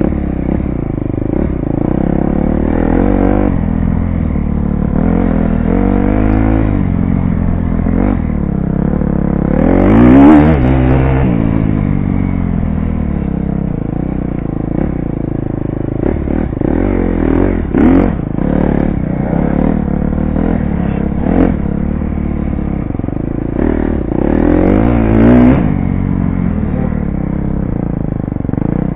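KTM dirt bike engine running hard on an off-road trail, revving up and dropping back again and again as the rider works the throttle, with the loudest rev about ten seconds in. Loose rattling from the bike over the rough ground comes through along with the engine.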